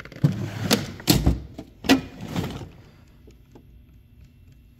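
Steel toolbox drawers being slid shut and open on their runners, with several loud clanks and the rattle of metal tools shifting inside, stopping a little past halfway through.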